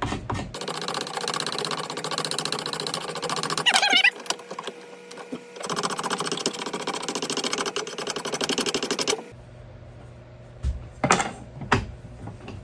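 A wooden axe handle being shaved down with a coarse rasping tool to fit the axe head, in two spells of rapid, regular scraping of about three seconds each. A few sharp knocks follow near the end.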